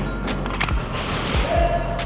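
Background music with a steady beat of quick high ticks over a bass line.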